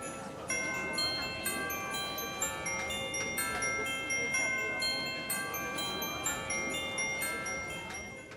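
Bells ringing: struck tones of several different pitches follow each other a few times a second and overlap as they ring on. They fade out near the end.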